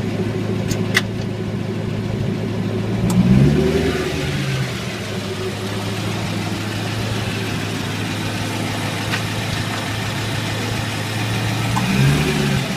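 C5 Corvette Z06's LS6 V8 running at low throttle, its pitch rising briefly about three seconds in and again near the end, with a few sharp clicks from the driveline, two close together about a second in and single ones around three and nine seconds. The clicking is the kind the owner traced to a dry rear axle nut and spline, cured by greasing the spline.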